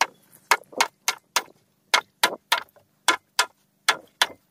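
Machete blade chopping into wood: a run of about a dozen sharp strikes, roughly three a second, each one short and separate.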